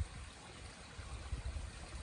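Creek water running between and under ice: a steady, even rushing trickle. Short low thumps on the microphone come right at the start and again about a second and a half in.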